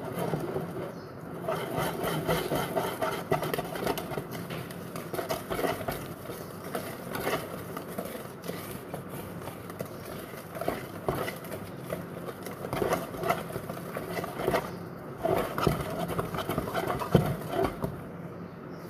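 Wire whisk beating carrot cake batter in a bowl as the flour is mixed in: a fast, continuous run of scraping clicks with a couple of short pauses.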